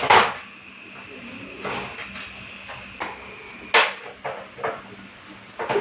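Metal clinks and knocks from parts of an LPG gas stove being handled during repair: one sharp clink nearly four seconds in, then a few lighter taps, over a faint steady hum.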